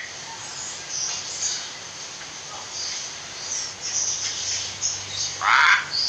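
Faint high chirps over a steady hiss, then near the end a loud, harsh call lasting about half a second, the kind given by a hill myna.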